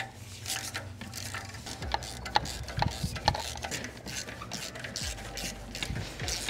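Socket wrench with a 14 mm spark plug socket on an extension loosening spark plugs: irregular short metal clicks and scrapes of the tool at work.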